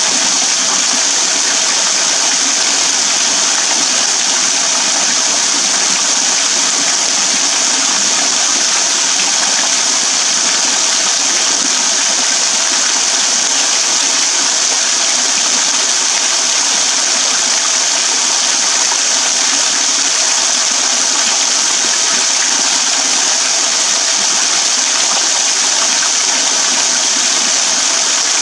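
Small waterfall pouring off a rock overhang in thin strands and drops, splashing steadily onto a shallow puddle and wet ground below, an even hissing patter with no change.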